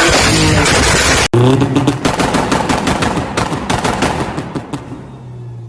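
Modified Mercedes-AMG V8 running at high revs, cutting off abruptly about a second in. Then a rapid string of exhaust pops and bangs that fade out over the next few seconds as the engine note falls away.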